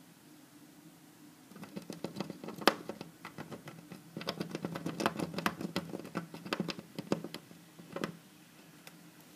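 A squirrel scratching and chewing at a window from outside, heard through the glass: a quick, uneven run of small clicks and scrapes that starts about a second and a half in and stops about two seconds before the end, with one last scrape shortly after.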